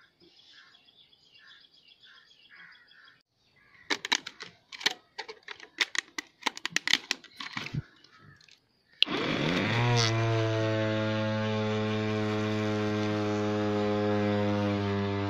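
Small electric motor of a homemade plastic-bottle blender switched on, spinning up within a second and then running with a steady whine as its blades chop tomato pieces, the pitch sagging slightly near the end. Before it, a run of clicks and knocks as the bottle is handled.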